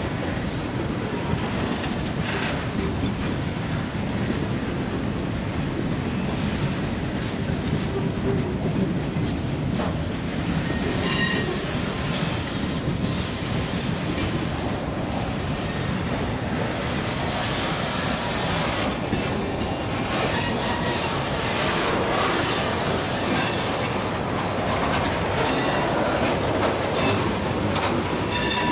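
Freight train rolling past on the adjacent track: a steady rumble of wheels on rail with occasional clacks, and intermittent high-pitched wheel squeals.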